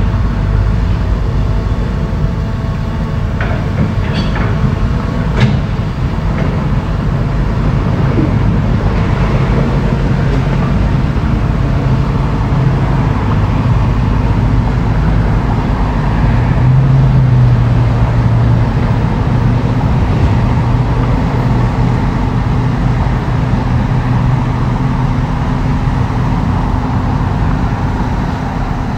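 Heavy diesel earthmoving machinery running steadily. A few sharp knocks come about four to five seconds in, and the engine note swells under load a little past halfway through.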